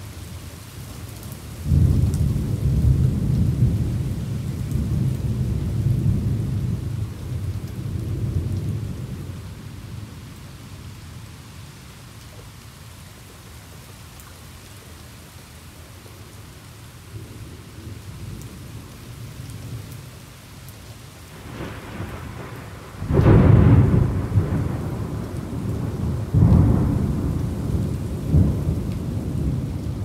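Thunder over steady rain. A long low rumble starts about two seconds in and fades away over several seconds; near the end, a crackle builds into a sharp, loud clap that rolls on as further rumbling.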